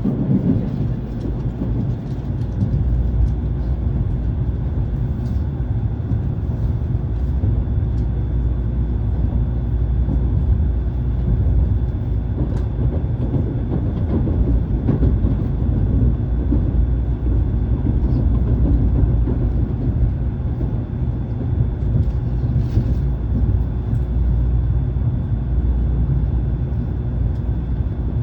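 Shinkansen train running, heard from inside a passenger car: a steady low rumble with faint steady tones and occasional light ticks.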